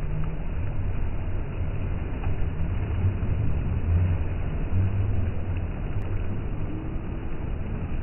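Small waves breaking and washing up a sandy shore: a steady, low rumbling wash that swells about three to five seconds in.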